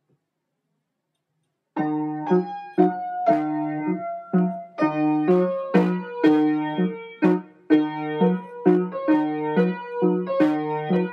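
Piano music starts about two seconds in: struck chords and single notes at a steady, bouncy beat.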